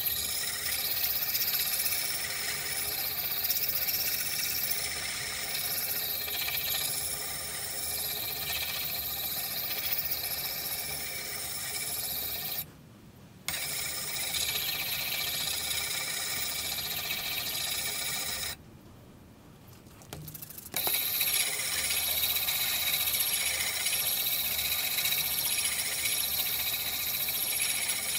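Steel tomahawk head being hand-sanded with an abrasive pad, a rhythmic back-and-forth rasping scrub. It stops abruptly twice, briefly about a third of the way in and for about two seconds past the middle.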